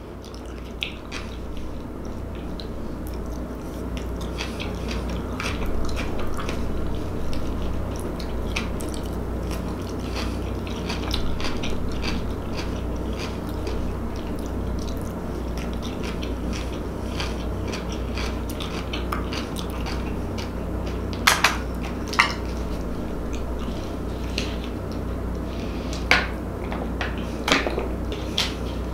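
Close-up chewing and mouth sounds of someone eating a mouthful of coleslaw and macaroni salad: soft wet smacks and small crunchy clicks over a steady low hum. A few louder sharp clicks come in the last several seconds.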